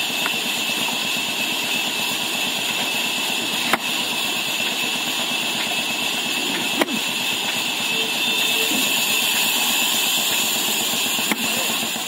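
Axes striking wood as logs are split by hand: four sharp chops, a few seconds apart, over a steady machine-like drone.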